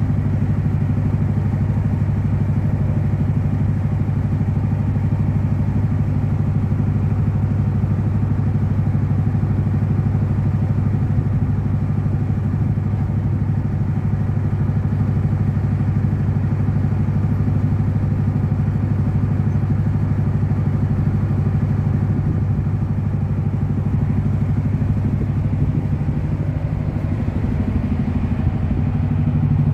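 A work boat's engine running steadily with a deep, even drone, heard from on deck. It gets a little louder near the end.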